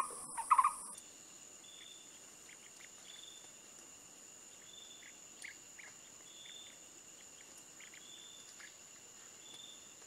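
The last chiming notes of an intro jingle stop about a second in, leaving forest insects: a steady high-pitched drone with a short buzzing note repeating about once a second, and a few faint ticks.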